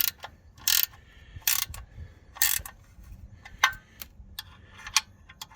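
Ratchet wrench clicking as the oil drain plug is run in and snugged: four short bursts of ratcheting about a second apart, then a few sharp single clicks.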